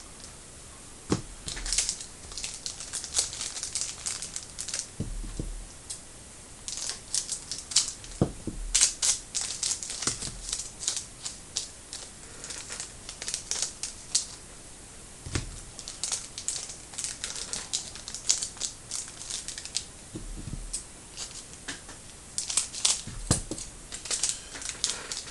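Trading card packs being opened by hand: foil wrappers crinkling and tearing, with cards handled and set down, heard as irregular short crackles and clicks with a few soft thumps.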